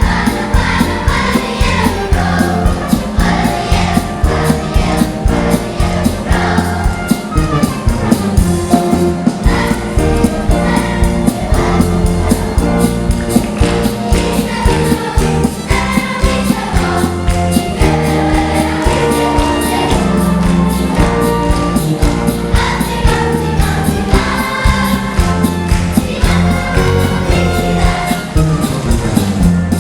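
Children's choir singing over instrumental accompaniment with a steady beat.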